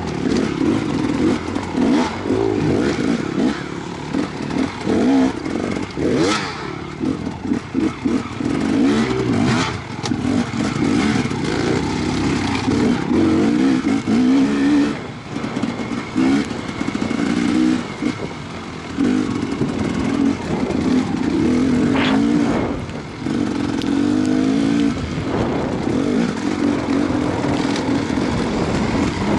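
Enduro dirt-bike engine revving up and down with the throttle, heard close up from on the bike as it is ridden, with occasional sharp knocks and clatter.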